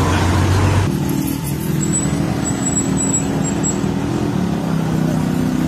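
A motor vehicle's engine running steadily, a low hum that shifts to a different pitch about four seconds in. The sound changes abruptly just under a second in, and a faint high whistle comes and goes from about two to four seconds.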